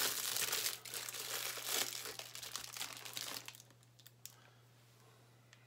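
Plastic wrapping crinkling and rustling as a lump of polymer clay is handled, for about three and a half seconds. Then it goes quiet except for a couple of faint clicks.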